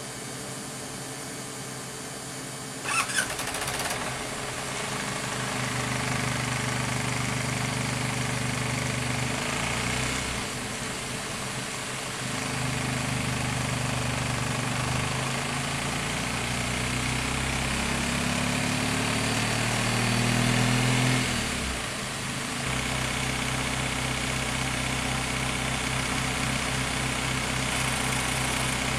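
An engine running, after sharp clicks about three seconds in; its pitch shifts several times, rising to a peak and then dropping back to a steady run.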